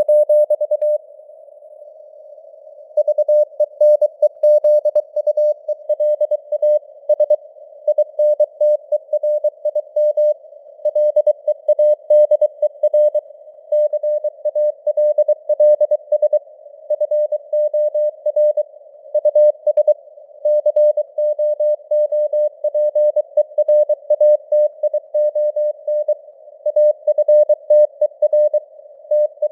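Morse code (CW) sent at 23 words per minute: a single steady tone keyed on and off in dots and dashes, over a band of simulated radio noise. The keying pauses briefly about a second in, then resumes.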